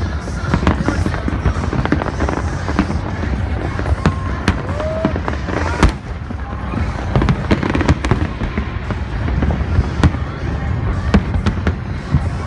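A fireworks display going off: a rapid run of sharp bangs and cracks, several a second, over a continuous low rumble of explosions.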